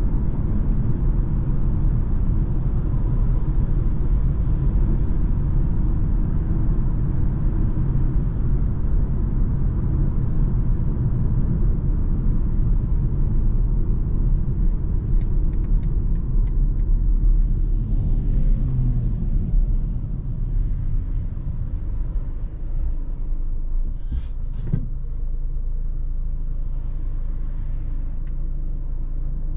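Steady low road and engine rumble heard inside a BMW's cabin at motorway speed, getting quieter about two-thirds of the way through as the car slows for traffic ahead. A couple of short clicks near the end.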